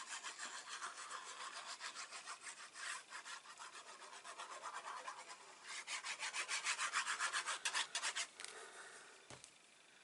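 Quick, rhythmic rasping strokes of paper rubbing against card, about five a second, getting louder in the second half and stopping shortly before the end, as strips of patterned paper are pressed down onto a card box.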